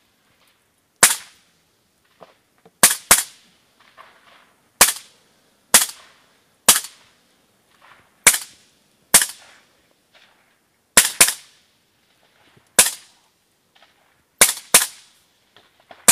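Small-arms gunfire: about fourteen single sharp cracks at uneven intervals, some in quick pairs, each followed by a short echo.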